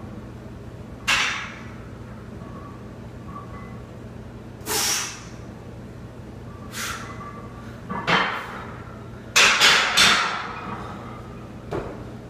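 A lifter's loud, sharp breaths a few seconds apart between heavy barbell back-squat reps, then a quick cluster of metal clanks with a brief ring as the loaded barbell is racked in a steel power rack, under a steady low hum.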